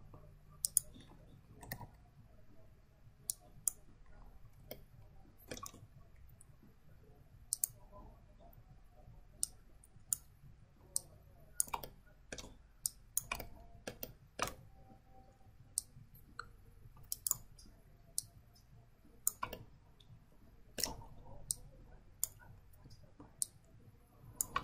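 Irregular clicks of a computer mouse and keyboard, about one a second and sometimes in quick pairs, over a faint low hum.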